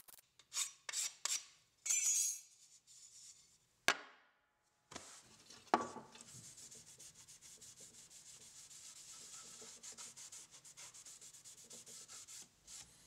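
A steel card scraper scraping the waxy Vera wood of a plane body in a few short strokes. After a click and a knock, a cloth rubs quickly back and forth over the wood, an acetone wipe-down that degreases the waxy surface so the glue will bond.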